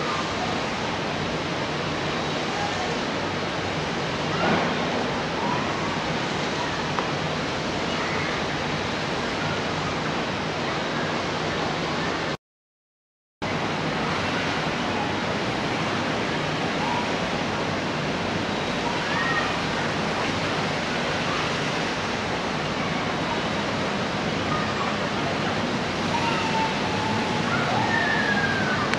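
Steady, even rushing outdoor background noise with a few faint short chirps scattered through it. It cuts to dead silence for about a second near the middle.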